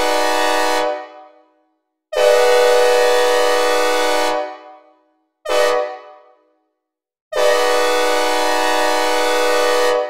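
Synthesizer recreation of a Nathan Airchime K5LA five-chime locomotive horn sounding a steady chord in the grade-crossing pattern. The first long blast ends about a second in, then come another long blast, a short one, and a final long one still sounding at the end. Each blast trails off in reverb.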